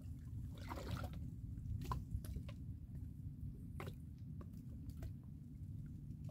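Small water sounds: scattered soft drips and light splashes over a steady low rumble.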